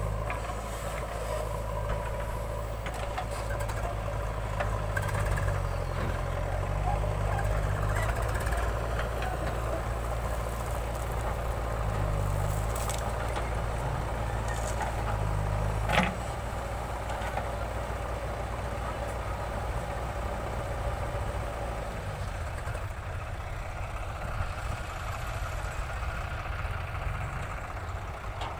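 Diesel engine of a JCB 3DX backhoe loader running under varying load as the backhoe arm swings and dumps soil, its note stepping up and down, with a tractor's engine running alongside. A single sharp knock about 16 seconds in.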